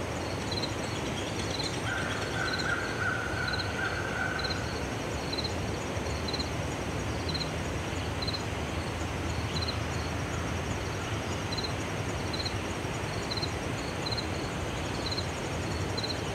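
Summer outdoor ambience: insects chirping in short high pulses about once a second over a steady low background hiss. About two seconds in, a steady higher drone joins for a little under three seconds.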